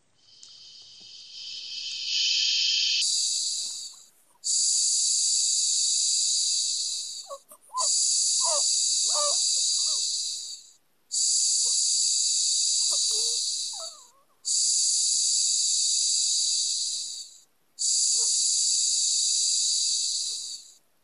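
Baby Shusher sound machine playing its recorded human-voice shushing: a steady 'shhh' hiss about three seconds long, repeated in a regular rhythm with short breaks, the first one fading in.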